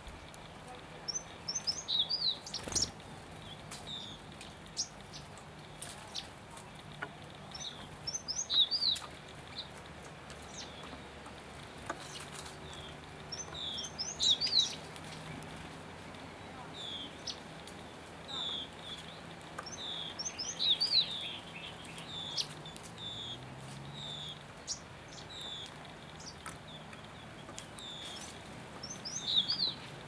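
A songbird singing a short phrase of quick, high, descending notes five times, about every six seconds, with single call notes in between.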